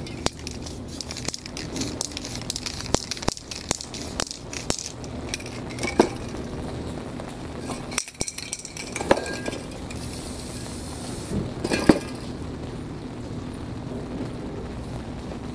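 Aerosol spray can being shaken, its mixing ball rattling and clinking quickly for the first few seconds, then a short hiss of spray about ten seconds in, with a few separate knocks between.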